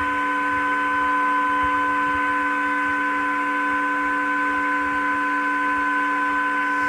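ECO-250 inverter welding machine switched on and idling, its cooling fan running: a steady hum of several fixed tones over an even hiss. The machine is running normally after repair.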